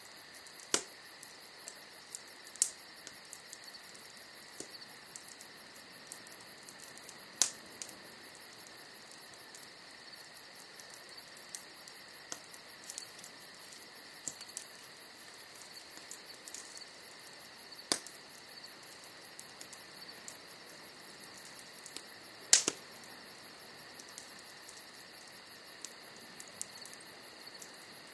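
Wood bonfire crackling, with sharp pops every few seconds; the loudest is a double pop about two-thirds of the way through. Under it runs a steady, high, rapidly pulsing trill.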